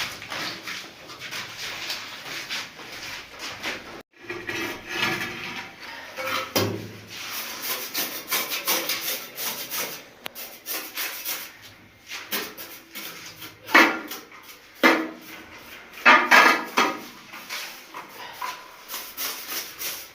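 Repeated scraping and rubbing strokes of hand-tool work on a building surface. The sound breaks off abruptly about four seconds in, then resumes, with louder strokes in the second half.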